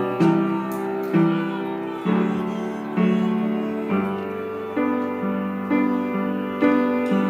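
Slow, tender piano music with no voice. Notes and chords are struck about once a second, each ringing on and fading before the next.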